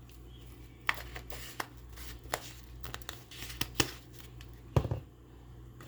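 Kitchen handling sounds as seasoning containers are opened, shaken and set down: a string of sharp plastic clicks and taps with light rustling, the loudest knock near the end.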